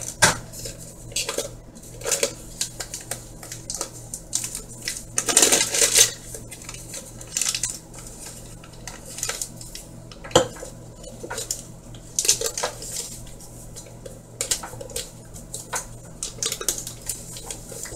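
A utensil clinking and scraping against a bowl as cake batter is spooned out, in irregular strokes with a longer scrape about five seconds in and a sharp knock about ten seconds in.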